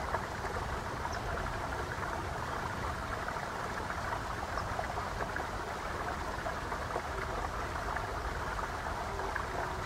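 Steady running water like a flowing stream, an even hiss from a nature-sound background track.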